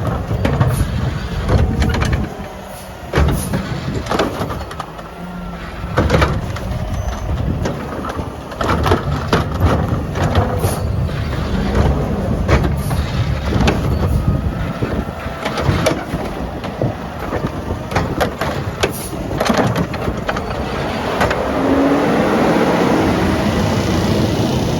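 Mack LR garbage truck with a McNeilus Meridian body at work: diesel engine running with a heavy low rumble, repeated sharp knocks and bangs, and the engine revving up near the end. Wind buffets the microphone.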